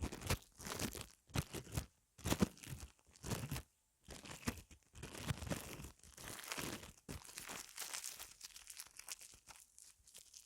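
ASMR ear massage: hands rubbing and pressing right on the microphone, making close, scratchy, crinkly rubbing strokes in irregular bursts that thin out and fade near the end.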